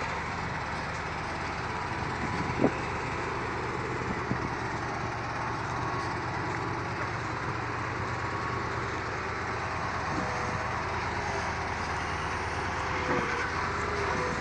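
A heavy diesel engine running steadily during log loading onto a timber truck, with a single sharp knock about two and a half seconds in.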